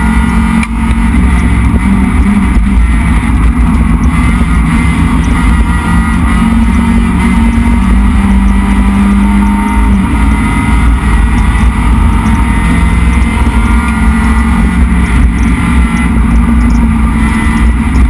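Neon race car's SOHC 2.0-litre four-cylinder engine running hard at racing speed, heard loud from inside the stripped, caged cabin. The engine note drops about ten seconds in.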